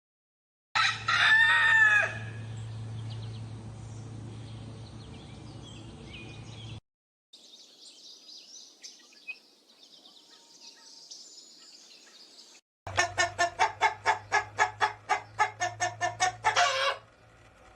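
A rooster crows about a second in, a loud call with rising and falling pitch that trails off. After a faint stretch of small birds chirping, a chicken gives a rapid run of clucks, about five a second, for some four seconds near the end.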